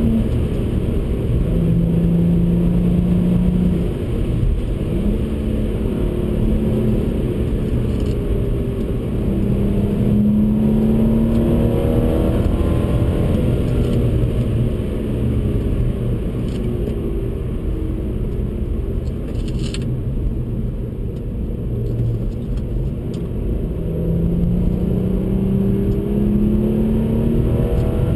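2012 BMW 135i's N55 turbocharged straight-six heard from inside the cabin, pulling through the gears at speed. Its pitch climbs and then drops back at each upshift, over a steady rush of tyre and road noise, and eases to a steadier drone through the middle stretch.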